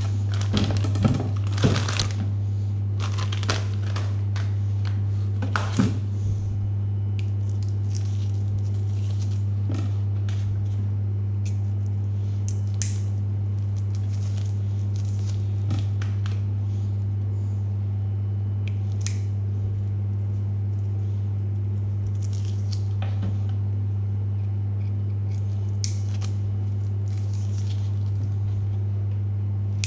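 A steady low hum, the loudest sound, with plastic packaging crinkling and small clicks and rustles as goods are handled. The handling is busiest in the first six seconds, then comes only now and then.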